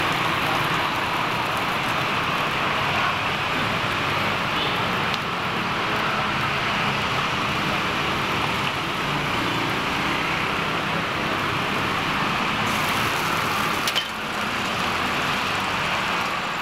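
Steady roadside traffic noise, an even hiss-like rumble with no distinct events, broken once near the end by a single short click.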